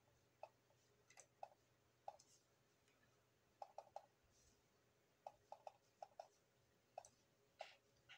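Faint computer mouse button clicks at irregular intervals, some in quick runs of two or three.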